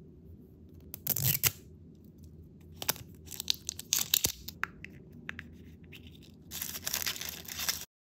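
Plastic wrapper of an L.O.L. Surprise toy ball being torn and crinkled open by hand, with sharp clicks of handling the small plastic capsule inside. There are loud bursts of tearing about a second in and again near the end, then the sound cuts off suddenly.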